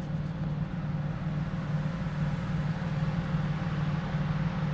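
Nissan Frontier pickup's engine running with a steady low drone and no change in pitch.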